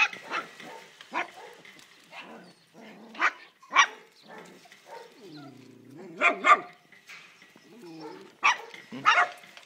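Puppies yapping with short, high barks, again and again, with a drawn-out whine about five seconds in.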